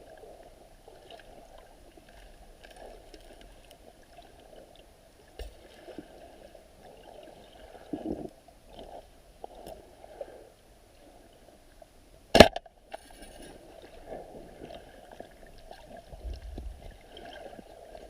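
Muffled underwater water noise, as picked up by a camera in a waterproof housing, with a few swells. About twelve seconds in there is a single sharp, very loud click.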